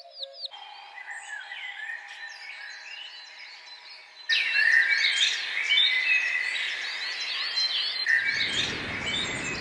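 A chorus of small birds chirping, many short overlapping calls at once. The sound jumps abruptly about half a second in and again about four seconds in, where it becomes much louder, as if separate recordings are cut together.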